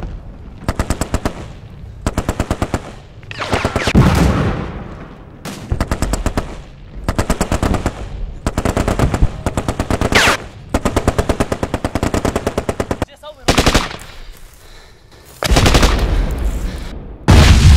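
Automatic gunfire: repeated strings of rapid shots, each lasting about a second, with short pauses between them. Near the end a loud, low, continuous rumble comes in.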